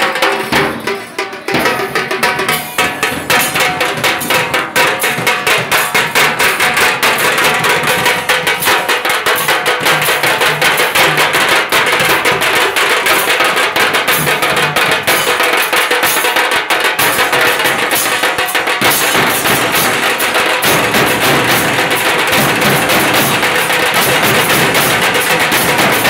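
A group of large drums beaten with sticks in a fast, continuous rhythm, the strokes coming thick and dense.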